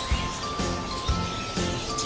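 Music with a steady beat of about two strokes a second and a simple melody of held high notes stepping up and down.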